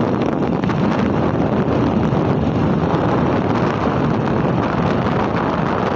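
Steady wind rush on the microphone from a moving vehicle, with the vehicle's running noise underneath.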